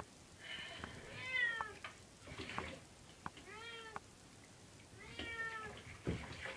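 Domestic cat meowing about four times in protest while being bathed, each meow drawn out and rising then falling in pitch.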